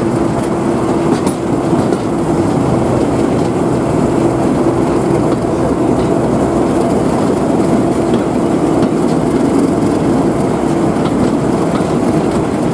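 Class 37 diesel locomotive's English Electric V12 engine running steadily with a low, even drone as the train moves along, with faint wheel clicks over the rail joints.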